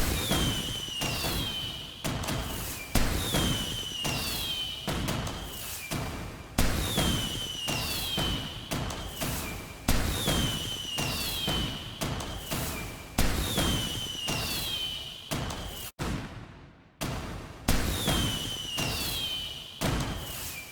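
Fireworks exploding in quick succession: sharp bangs and booms a second or so apart, each dying away, with a falling whistle about every two seconds. The sound cuts out for about a second near the end, then resumes.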